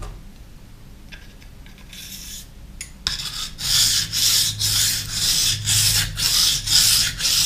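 Steel kitchen-knife blade drawn back and forth over a water-soaked coarse 200-grit whetstone, a wet rasping grind at about three strokes a second that starts about three seconds in; before that only faint handling as the knife is set on the stone.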